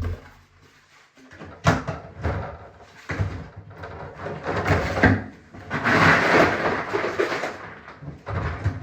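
Rummaging and clattering as things are handled in a container, with a sharp knock about two seconds in and a louder, rushing rattle around six to seven seconds in.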